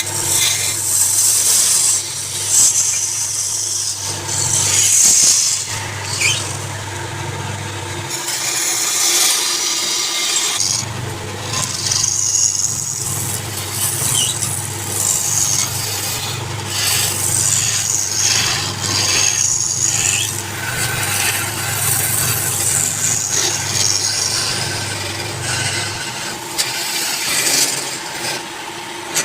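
Wood lathe running, with a turning tool scraping against the spinning wood over the motor's low hum. The hum drops out briefly about a third of the way in and again near the end.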